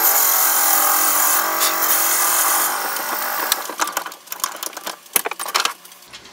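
Turncrafter Commander mini wood lathe running with a drill bit in the spinning spindle blank, then winding down to a stop after it is switched off. A few light clicks and knocks follow as the tailstock is backed off.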